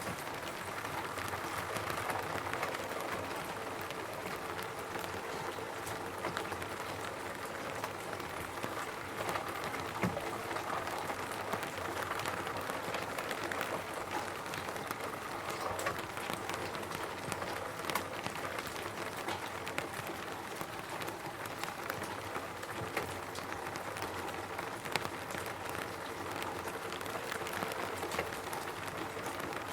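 Rain falling on a roof: a steady patter of many separate drops striking, with a few louder taps standing out now and then.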